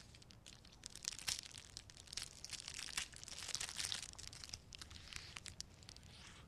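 Wrapper of a small chocolate bar being unwrapped by hand: quick, irregular crinkling and tearing of foil and paper, busiest in the middle.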